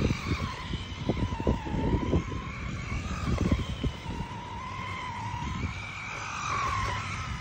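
Radio-controlled off-road truck driving through snow: a steady motor and drivetrain whine that wavers slightly in pitch as the throttle changes, over many low bumps and knocks.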